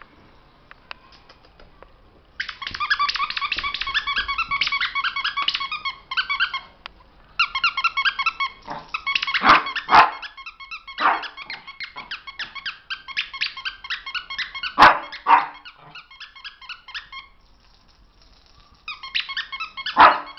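A squeaky toy squeaking rapidly and over and over in long runs, while a Shih Tzu puppy gives a few loud, sharp barks at it, twice in a row around ten seconds in, again near the middle and near the end.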